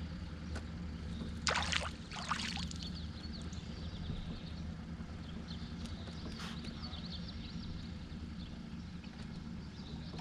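Outdoor lake ambience from a small boat: a steady low hum, faint high chirps, and two short rushing, splashy sounds about one and a half and two and a half seconds in.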